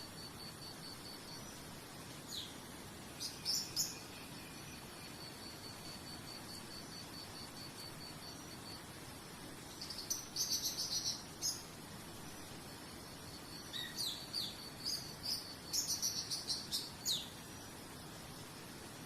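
Songbirds calling in three short bouts of quick chirps and falling whistles over a steady, evenly pulsed insect trill like a cricket's, with a constant soft hiss underneath.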